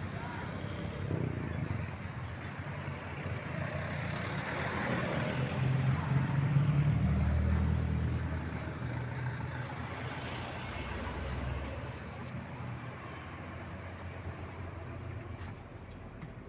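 A heavy vehicle passes close by on the road. Its low engine rumble swells to a peak about seven seconds in and then fades away.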